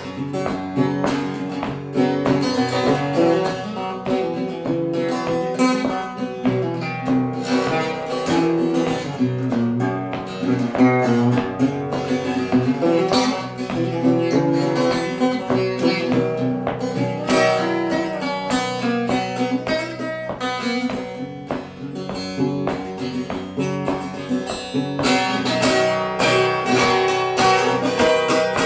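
Solo small-bodied acoustic guitar played as an instrumental passage, a continuous run of picked notes and chords.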